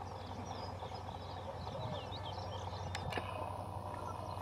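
Small birds chirping, many short calls, over the low, steady drone of an approaching WDP4D diesel locomotive's EMD two-stroke engine.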